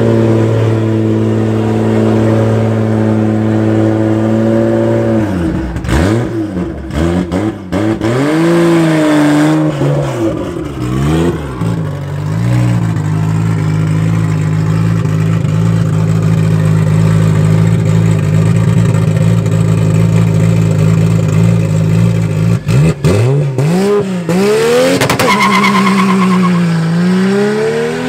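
Heavily tuned Toyota Supra 2JZ inline-six engine running at a steady note, blipped up and down several times, then held steady for about ten seconds. Near the end it launches, its pitch climbing and dropping back again and again as it shifts up through the gears.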